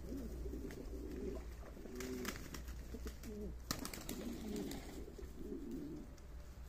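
A flock of domestic pigeons cooing, with a few sharp clicks about two seconds in and again near four seconds in.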